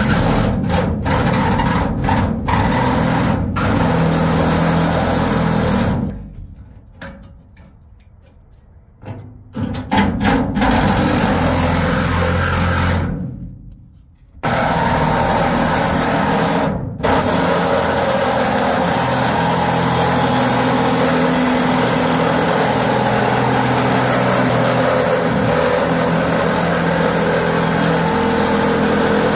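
Handheld reciprocating saw cutting through the rusty sheet-metal bedside of a square-body Chevy pickup to take out a patch panel. It runs loudly in stretches, stopping for a few seconds about six seconds in, again around thirteen seconds, and briefly near seventeen seconds, then runs steadily through the rest.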